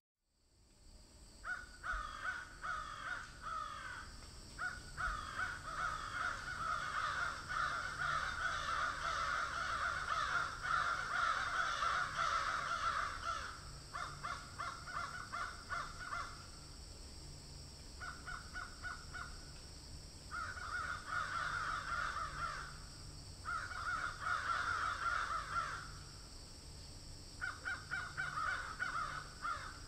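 A flock of birds calling harshly and rapidly, in bouts of a few seconds with short breaks between, over a steady high-pitched drone. The sound fades in over the first second or so.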